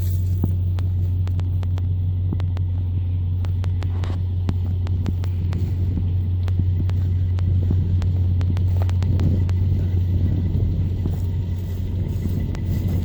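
Ford 7.3-litre turbo-diesel V8 running steadily, a deep rumble with many sharp ticks through it. A faint high turbo whistle comes in near the end.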